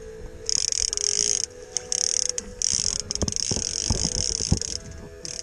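A fishing reel's drag buzzing in three long runs as a hooked steelhead pulls line off, with a few dull knocks about three to four and a half seconds in.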